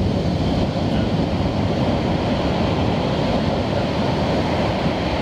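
Ocean surf on the beach, a steady low rushing noise with no pauses.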